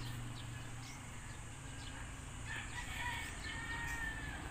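A rooster crowing faintly in the distance: one long drawn-out call in the second half, with a few short bird chirps before it.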